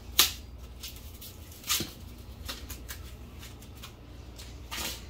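Sticky corn husks being peeled off the ears: three short tearing rustles. The loudest comes just after the start, one just before two seconds in, and one near the end.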